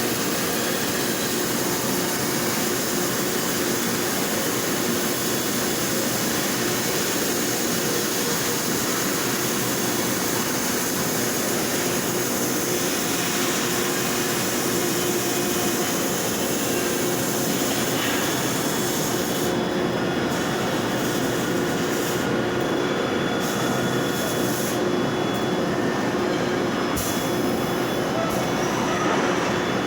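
MIG welding by a Fanuc robot: a steady hiss of the welding arc with a faint hum underneath. From about twenty seconds in, the hissing top end drops away in several short gaps.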